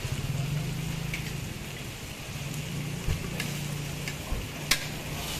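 Patties and sliced meat sizzling on a flat-top griddle, with a steady low hum underneath. A few sharp clicks, the loudest near the end, as metal tongs handle the meat.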